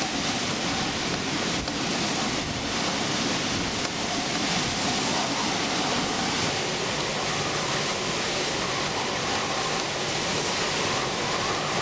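Hurricane-force wind blowing steadily and hard, a dense unbroken rush with a faint wavering whistle in it.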